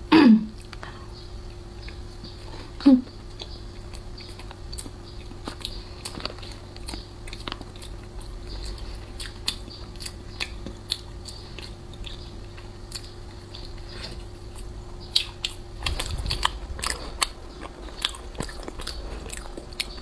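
Close-up mouth sounds of biting and chewing a soft flaky custard pastry with a mochi layer: wet smacks and small clicks, coming more thickly and louder a little after halfway through.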